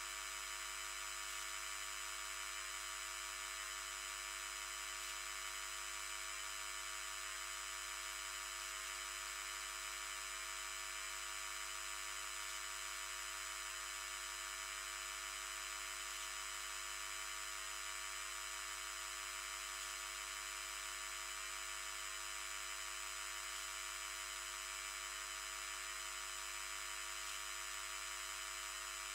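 The 50 Hz mains voltage of the electrical grid rendered directly as audio through a high-pass filter. It is a steady, unchanging buzz made of many high harmonics of the supply frequency over a hiss. The harmonic noise comes from some equipment connected to the grid that was injecting heavy harmonic distortion.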